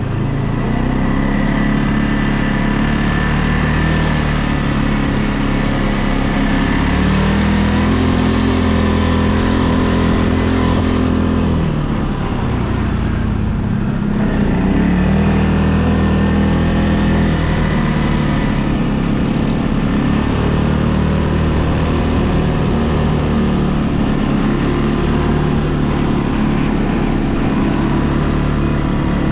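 ATV engine running under way, its pitch rising and falling as the throttle opens and eases. The pitch drops about eleven seconds in and climbs again a few seconds later.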